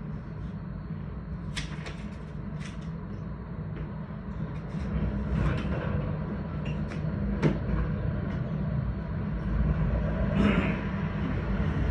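Low, steady rumble of street traffic with a tram standing on the tracks, scattered with short clicks and knocks. The rumble grows louder about halfway through and again near the end.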